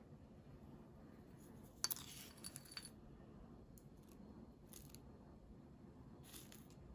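A spoon clinking and scraping against a small ceramic bowl while crunchy candied sweet-potato bits are scooped out: a cluster of sharp clinks about two seconds in, then a few faint ticks.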